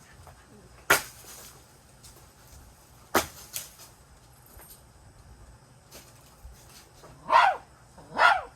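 Two short pitched animal calls, each bending up and down in pitch, about a second apart near the end, with a few sharp clicks earlier.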